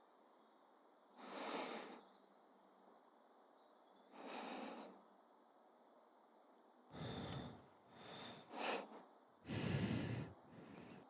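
Foley breathing: slow, heavy breaths, two soft ones and then several louder, deeper ones towards the end, over a faint steady outdoor ambience with insects.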